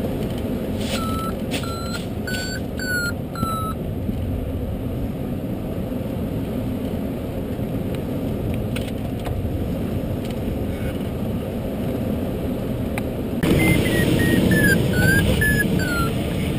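Steady rush of airflow around the ultralight glider's cockpit, with an electronic variometer beeping five times about a second in, its pitch rising slightly and then dropping back. Near the end the wind noise gets louder and the variometer sounds a quicker run of beeps that falls in pitch.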